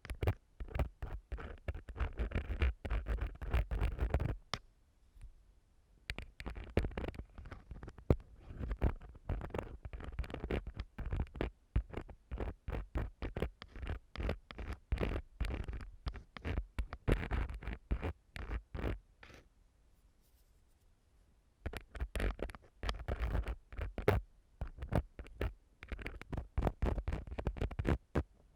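Close-miked ear-cleaning sounds: an ear-cleaning tool scratching and scraping rapidly against the microphone, with deep muffled rumbles from contact with the mic. The scratching comes in runs with two short pauses, one about five seconds in and one a little past two-thirds through.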